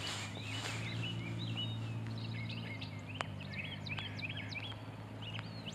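Small birds chirping: many short, upswept calls repeated over a steady low hum, with one sharp tick about three seconds in.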